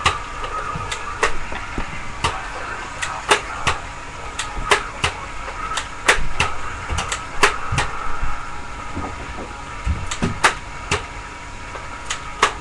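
Sharp clicks and snaps at irregular intervals, about one or two a second, over a steady background hum.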